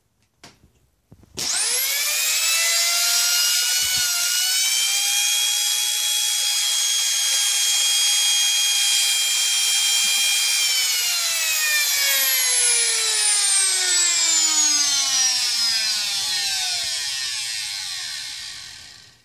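Hoover WindTunnel Self Propelled vacuum motor running unloaded with its fan removed. It starts about a second in and spins up quickly to a loud, steady, high-pitched whine. About ten seconds in its pitch begins to fall as it slowly winds down, until it stops near the end.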